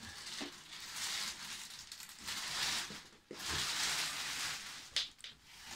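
Clear plastic wrapping crinkling and rustling as it is pulled off a guitar gig bag, in several stretches of a second or two.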